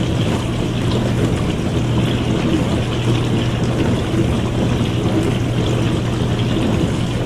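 Dishwasher running mid-cycle: a steady swish of spraying, trickling water over a constant low motor hum.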